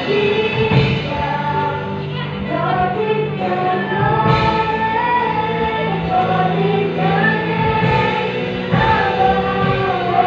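Background music: a song sung by a choir with instrumental accompaniment.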